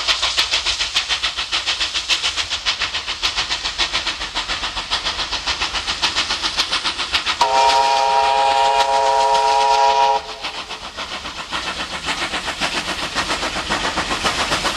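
Steam locomotive under way with a rapid, even beat, and its steam whistle sounding a chord of several notes for nearly three seconds about halfway through.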